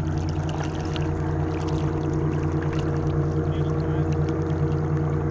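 Motorboat engine running at a steady speed, a constant low drone that does not change, with faint light splashes of water.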